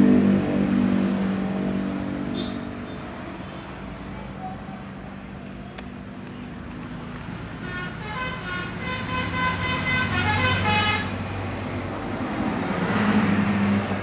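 Motor vehicles passing: one fades away at the start and another swells up near the end, with a horn-like tone from about eight to eleven seconds in.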